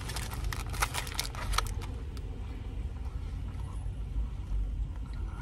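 Chewing a sandwich while handling its paper wrapper: a flurry of small crackles and clicks in the first two seconds, then sparser ones, over a low steady rumble in the car cabin.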